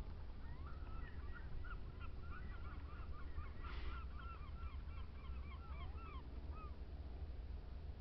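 A flock of waterfowl calling: a rapid run of short, arched calls, about three or four a second and overlapping, that fades out near the end. A steady low wind rumble sits under it.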